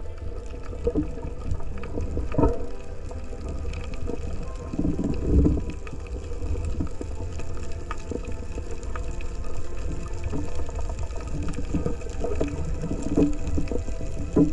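Underwater sound through a camera's waterproof housing: a steady low rumble of moving water with scattered knocks and clicks, the loudest about two and a half and five seconds in.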